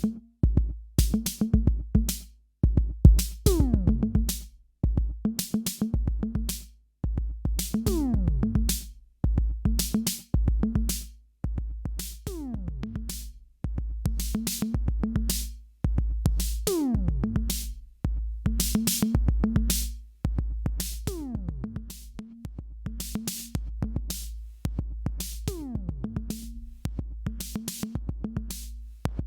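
Electronic drum-machine loop with a deep bass and a falling synth sweep about every two seconds, played through an Alesis Nano compressor set to pump hard. The level swells and sags within each phrase and drops out briefly every couple of seconds in the first half.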